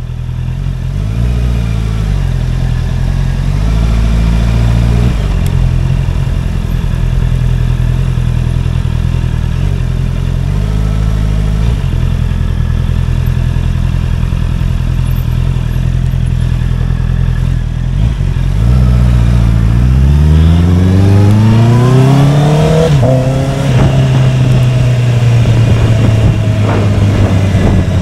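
Honda CBR650R's inline-four engine heard from the rider's seat, running at low speed with small rises and falls in pitch. About two-thirds of the way in it accelerates with a steeply rising note, then levels off to a steady pitch near the end.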